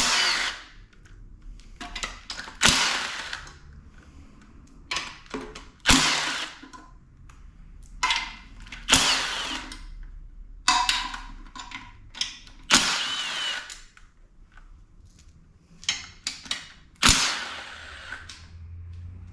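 A power tool spinning in short bursts, about eight of them, with clinks of parts being handled between. It is running out fasteners on a Honda K20 bottom end, likely the connecting-rod cap bolts as the rods and crank bearings are taken out.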